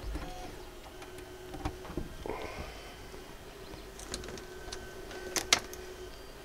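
Scattered light clicks and knocks from hands handling a Technics SL-1210MK2 turntable, the sharpest about five and a half seconds in, over a faint steady hum.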